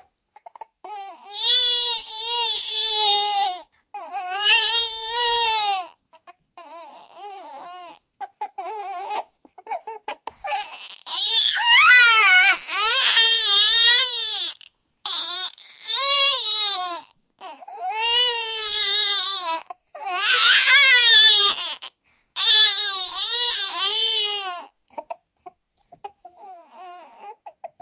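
Baby crying: a string of loud wails, each one to two seconds long with short gaps for breath, and quieter, broken whimpering cries in between. It fades out near the end.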